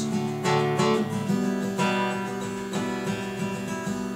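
Acoustic guitar strummed softly, chords ringing on, with a chord change about a second in.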